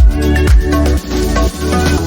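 Electronic dance music with a steady beat and a heavy bass kick about twice a second.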